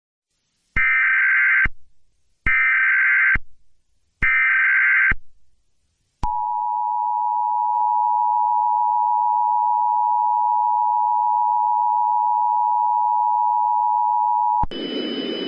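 Emergency Alert System broadcast opening: three short bursts of the warbling SAME data header, then the two-tone EAS attention signal held steady for about eight seconds. Near the end it gives way to a hiss with faint high tones.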